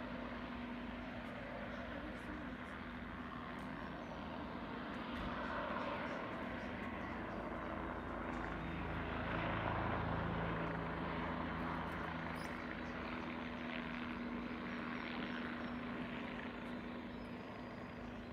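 Military helicopter flying over, a steady drone of rotor and engine that swells a little around the middle and then fades slightly.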